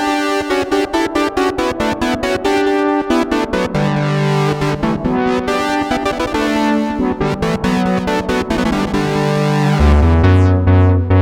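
Synthesizer music: held keyboard chords over a ticking beat, with a deeper bass line coming in near the end.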